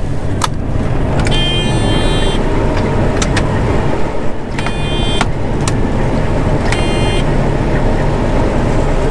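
John Deere 9500 combine running steadily while harvesting corn, a continuous low drone. Three short spells of a high steady tone sound over it, with a few sharp clicks.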